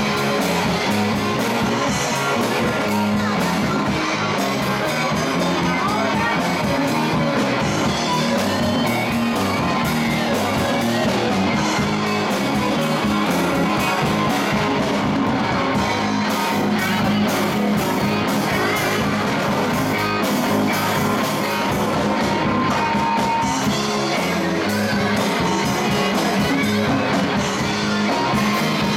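Live rock band playing loud and steady: two electric guitars and an electric bass through amplifiers, over a drum kit.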